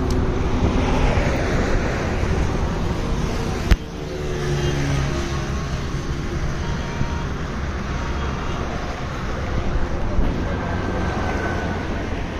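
Steady road and traffic noise from moving vehicles, with one sharp click nearly four seconds in, after which the noise dips briefly.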